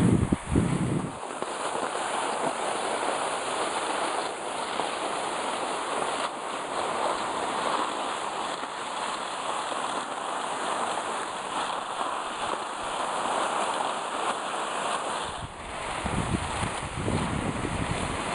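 Steady hiss of skis and a dog-drawn pulk sliding over packed snow. Wind buffets the microphone in the first second and again near the end.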